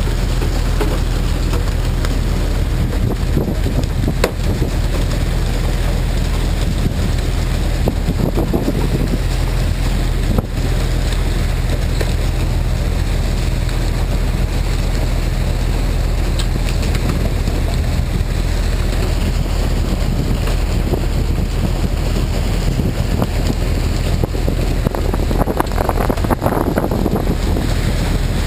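Fishing boat's engine droning steadily under a wash of wind on the microphone and water splashing along the hull, with a few brief knocks.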